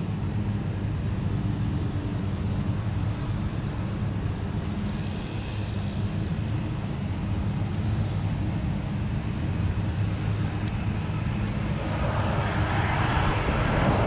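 Jet engines of a Southwest Airlines Boeing 737 on final approach: a low steady rumble that swells louder and fuller about twelve seconds in as the airliner draws near.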